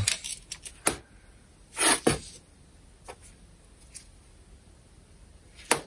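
Scattered metal clicks and taps of a combination wrench against an angle grinder's gear head as its screws are tightened by hand, with a short scraping burst about two seconds in and a sharp click near the end.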